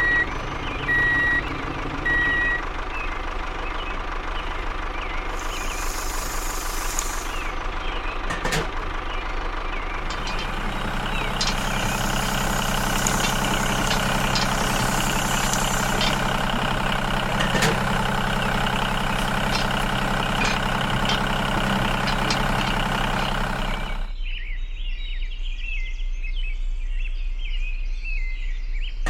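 A vehicle engine running steadily, with a reversing alarm beeping about once a second for the first couple of seconds. The engine note deepens and strengthens about ten seconds in, then cuts off suddenly about 24 seconds in, leaving a thinner, different mechanical sound.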